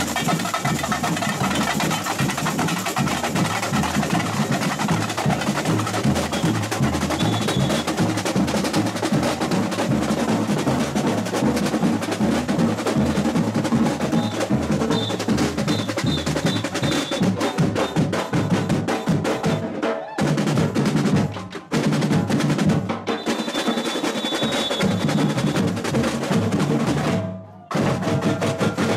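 Samba bateria drumming: the surdo bass drums keep a steady pulse under snare drums and other hand percussion. The drumming drops out briefly a couple of times in the last third.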